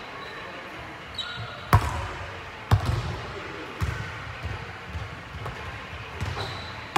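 A basketball bouncing on a hardwood gym floor: a string of hollow thumps, the loudest about two and three seconds in, followed by lighter ones, each echoing in the hall.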